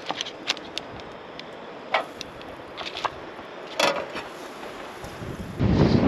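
Camp cookware handled on a tailgate table: a series of light clicks and knocks from a knife, pans and utensils. Near the end a gust of wind buffets the microphone.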